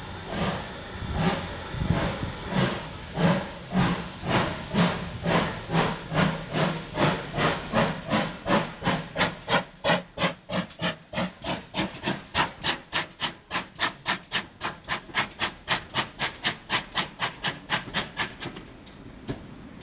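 Exhaust beats of GWR 5700-class pannier tank steam locomotive L94 pulling its train away, with steam hiss. The sharp, regular chuffs quicken from about two to about four a second as it gathers speed. They fall away abruptly near the end.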